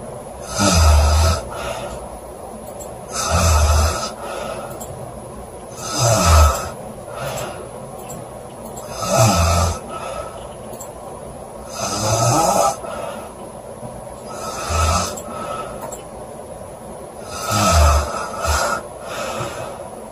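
A woman snoring loudly in sleep, with a heavy snore about every three seconds, seven in all, and softer breathing between them.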